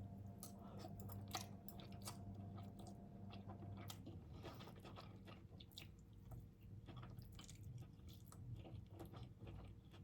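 Faint chewing of a mouthful of japchae (glass noodles and vegetables), with soft irregular clicks of the mouth and bite. A low steady hum underneath stops about four seconds in.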